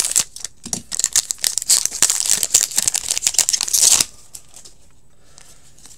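A hockey card pack's wrapper being torn open and crinkled by hand, a dense crackling that stops about four seconds in.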